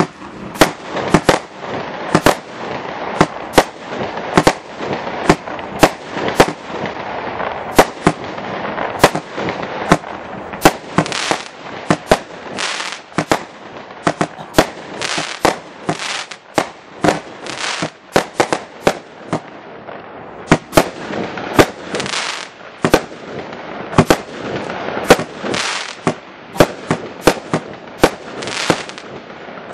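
93-shot 'Street Fighter' consumer fireworks battery (cake) of up to 30 mm shots firing in quick succession: sharp bangs about one to two a second over a continuous hiss.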